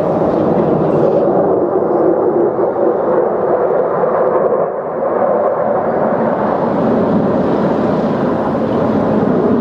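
Jet engine noise from a formation of F-16 Fighting Falcons flying over, a loud, steady rumble that turns duller for a few seconds in the middle before brightening again.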